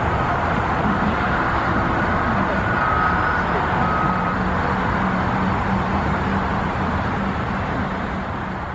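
Steady outdoor traffic noise with a low engine hum, faint voices mixed in.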